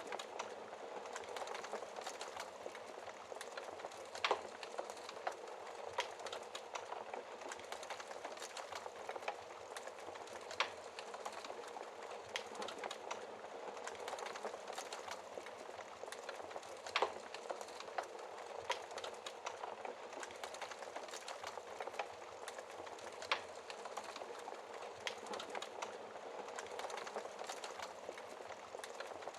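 Fireplace fire crackling steadily, with sharp louder pops every few seconds.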